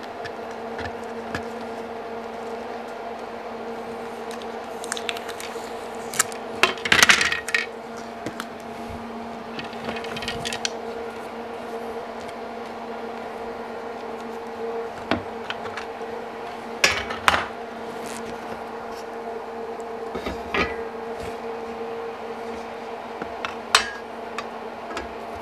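Scattered clicks, taps and clatter of hard plastic and metal parts as a Kreg edge guide, its screws and an aluminium rail are handled on a workbench. A denser run of knocks comes about seven seconds in. A steady hum sits underneath.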